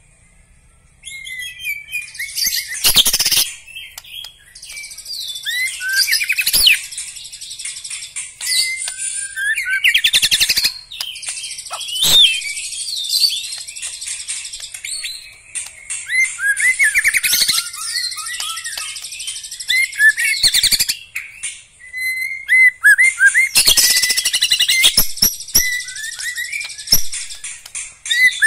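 Black-legged white-rumped shama (murai batu kaki hitam) singing a long, varied song of quick whistled phrases and rapid trills, with a short pause at the start and another brief lull past the middle. A few sharp knocks cut in among the phrases.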